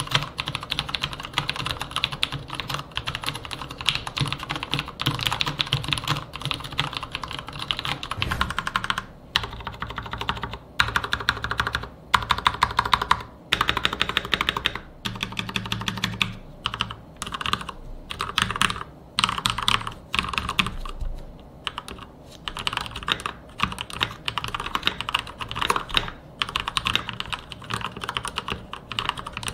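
Typing on fully lubricated mechanical keyboards: dense, continuous keystrokes on brown tactile switches, then, about nine seconds in, a switch to red linear switches typed in short runs with brief pauses. The switches make no spring ping.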